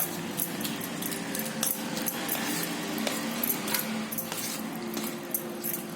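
Spoon clinking and scraping against a dish: a run of light, irregular clicks.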